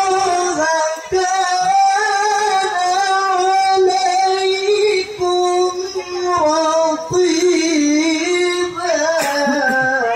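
A young man's solo voice chanting melodically into a microphone, holding long high notes with ornamented, wavering turns between them. The voice breaks off right at the end.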